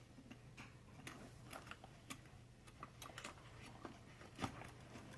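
Hand tools being handled and set down, giving scattered faint clicks and light knocks, one louder knock near the end, over a steady low hum.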